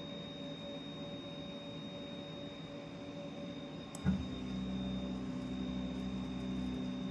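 CNC router jogging its A axis: a faint steady hum with a high whine. About four seconds in, the axis drive starts with a click and runs as a steady low drone for about three seconds.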